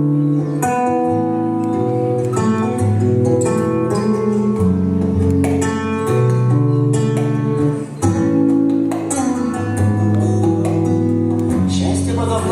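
Instrumental intro of a song, with guitar playing chords that change every second or two.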